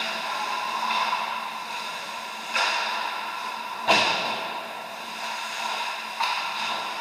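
Ice hockey play: three sharp impacts of puck, sticks or boards, the loudest about four seconds in during a scramble at the net, each ringing on in the arena's echo over a steady hum.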